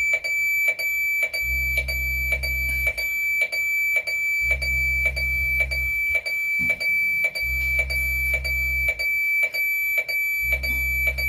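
Electronic alarm sounding continuously: a steady shrill high tone with about two and a half ticks a second, and a low vibrating buzz that switches on for about a second and a half every three seconds.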